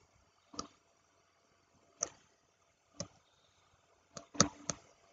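A few faint, short clicks, spaced out at first and then three close together near the end.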